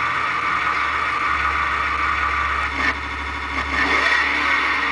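Engine sound effect from a large remote-control toy Corvette, played steadily through its small speaker, with a low hum joining about a second in.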